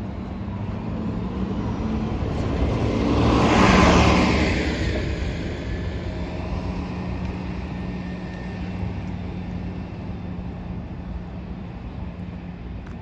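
Street traffic: a road vehicle passes close by, growing louder to a peak about four seconds in and then fading, over a steady low hum of city traffic.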